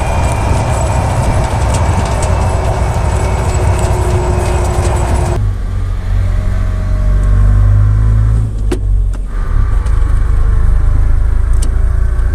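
Car being driven, with a loud steady low rumble and a faint whine, typical of damaged differential bearings. The sound changes abruptly about five seconds in, where a second recording begins, and both run steadily.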